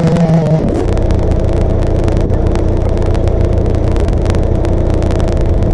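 Two Stihl MS880 two-stroke chainsaws running under load on a double-ended chainsaw mill, cutting lengthwise through a wide sycamore log; a loud, steady drone whose engine note shifts lower about half a second in, then holds.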